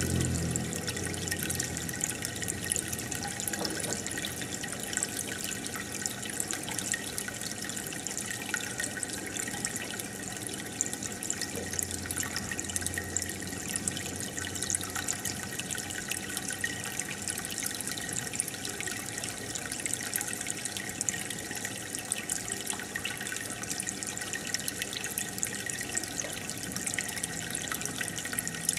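Aquarium pump or filter sending a stream of air bubbles through the tank water: a steady bubbling and trickling with fine crackle, under a faint steady hum.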